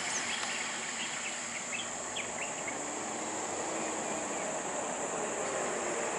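Steady high-pitched insect drone with a few short bird chirps in the first two and a half seconds, over the faint running of idling vehicle engines.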